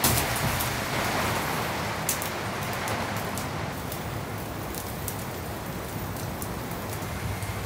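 Heavy rain pouring down on the cabin, a steady rushing hiss, with scattered sharp crackles from the wood fire burning in the hearth.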